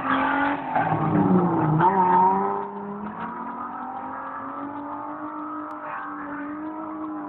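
Race car engines running at high revs, the note dipping and climbing about two seconds in, then holding steady and quieter from about three seconds on.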